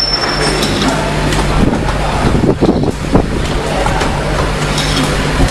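Pneumatic pad printing machine running: a steady hum and air hiss with a few short clicks from its cylinders.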